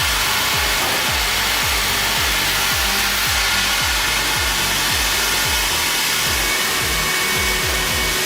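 Heavy log bandsaw cutting through wood with a steady, even hiss, under background music with a steady bass beat.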